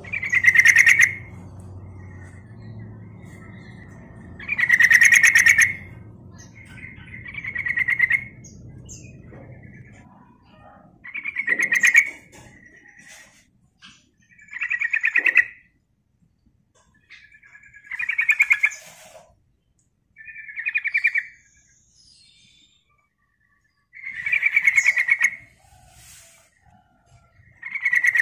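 Yellow-vented bulbul singing: about nine short phrases of rapid notes, each about a second long, repeated every two to four seconds.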